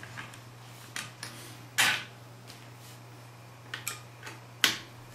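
About five sharp clicks and light knocks as the rifle's handguard screws and parts are handled, the loudest near two seconds in and just before the end, over a steady low hum.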